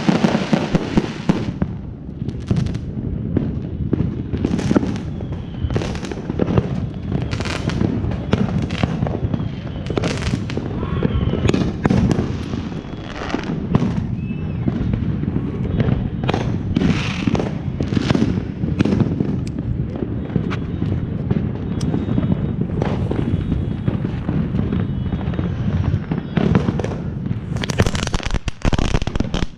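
Fireworks going off: repeated bangs and pops scattered throughout over a steady low rumble, with an aerial shell's burst at the start. Near the end a ground firework on the pavement sprays sparks and crackles in a quick cluster of pops.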